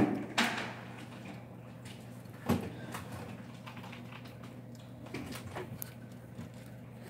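A few scattered knocks and bumps, the loudest about half a second in and another about two and a half seconds in, over a steady low hum.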